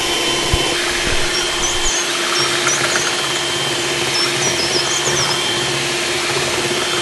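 Electric hand mixer running at a steady speed, its beaters whirring through a thin, frothy mixture of beaten eggs, condensed milk and water in a glass bowl.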